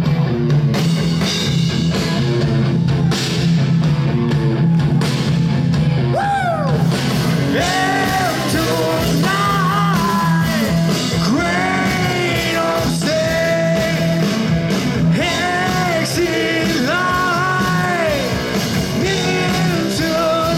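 Live rock band playing loudly: drums, bass and electric guitar, with a lead melody of long sliding, bending notes taking over from about six seconds in.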